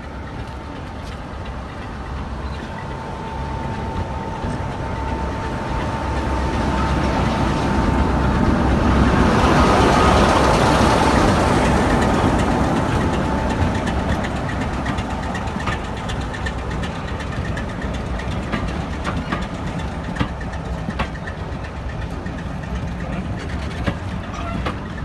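Class 45 'Peak' diesel locomotive 45060 pulling away, its Sulzer twin-bank engine running under power. A steady whine sits over it. The sound swells as the locomotive passes close by about ten seconds in, then eases as its coaches roll past with a run of sharp clicks.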